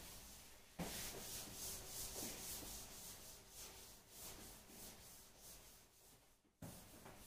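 Faint scratchy rubbing strokes against a classroom writing board, in an even back-and-forth rhythm of a few strokes a second. They start suddenly about a second in, and a fresh run begins near the end.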